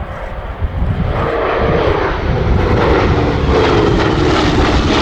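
Twin radial piston engines of a Douglas A-26 Invader drone past overhead. The sound grows louder from about a second in, and its pitch slides slowly down as the aircraft passes.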